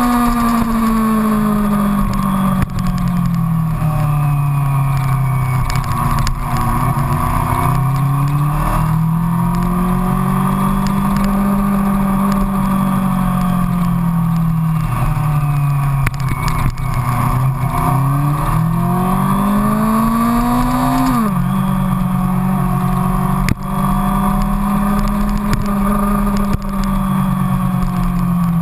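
Yamaha FZX250 Zeal's inline-four engine running on the road, its note rising and falling slowly with the throttle, with a sudden drop in pitch about three-quarters of the way through, over wind and road noise picked up at the front fender.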